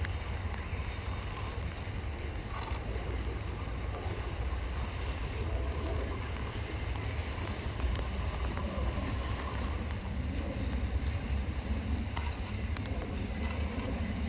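Steady low rumble of wind buffeting the microphone, with a faint even hiss above it.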